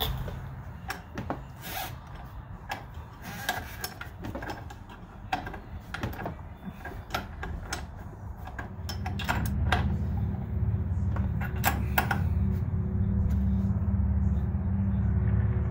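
Irregular metallic clicks and knocks of hand tools working on Jeep suspension parts. A steady low rumble comes in about halfway through and continues under the clicks.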